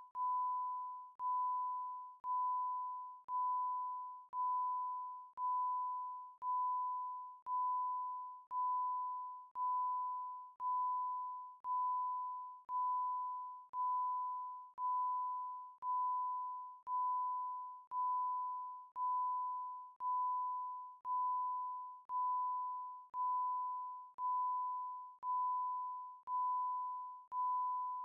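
Electronic level-crossing bell ringing: one clear ding about once a second, each fading away, in a steady unbroken series.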